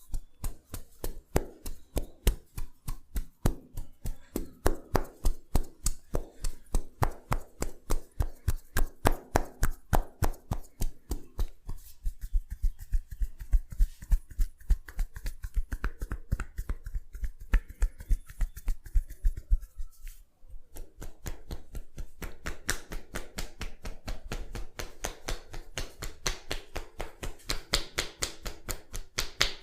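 Massage hand percussion: a fast, even series of slaps or chops with the hands, about four a second. It stops briefly about twenty seconds in, then starts again quicker and softer.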